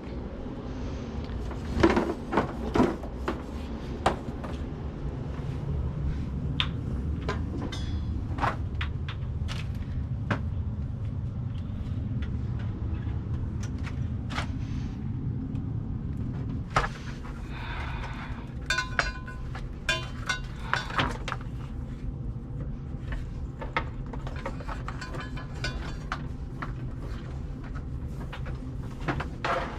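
Scattered clicks, knocks and rattles of hand work with network cable and mounting hardware, over a steady low hum.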